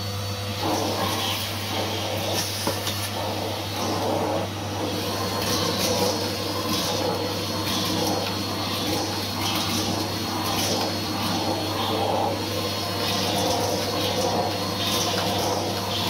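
Numatic Hetty cylinder vacuum cleaner running steadily, its motor hum under a rushing suction noise from the crevice tool on stair carpet. The suction sound swells and fades as the tool is worked along the step.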